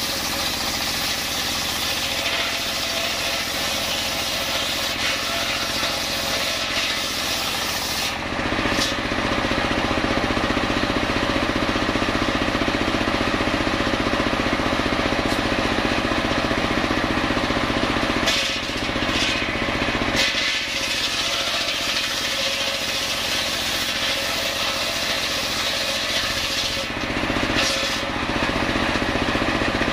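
Homemade circular saw bench running steadily, its large blade ripping a coconut log lengthwise. The sound grows louder and deeper about eight seconds in as the cut takes hold, and shifts briefly around eighteen to twenty seconds and again near the end.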